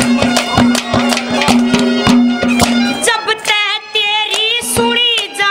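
Haryanvi ragni folk accompaniment: a droning melody instrument over steady drum beats, then about three seconds in the drums stop and a high melody line with a fast wavering vibrato carries on alone.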